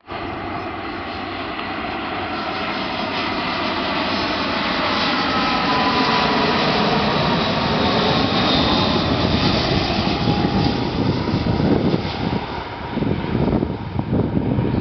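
Airbus A320's twin IAE V2500 turbofan engines on final approach: a jet roar that builds as the airliner nears and passes, with whining tones that slide down in pitch as it goes by. Near the end the sound turns choppy and uneven.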